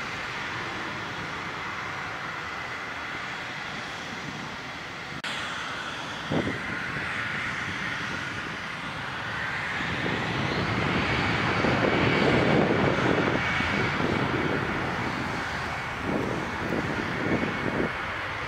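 Jet aircraft engines running at an airport: a steady rushing noise with a high whine, the whine rising in pitch and growing louder about ten seconds in, with rough low rumbling near the end.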